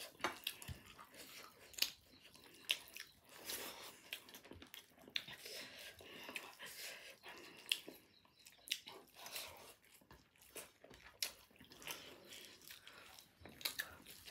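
People chewing mouthfuls of biryani, with many irregular soft clicks and smacks of eating.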